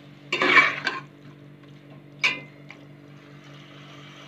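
A metal spatula scrapes and stirs minced meat and tomatoes in a metal pot for about a second, then clinks once against the pot with a short ring, over faint sizzling from the frying mince and a steady low hum.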